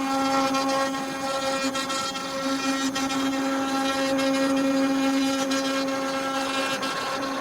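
CNC wood router's spindle motor running at a steady high pitch as it cuts into wood, with a rough hiss and scattered faint ticks.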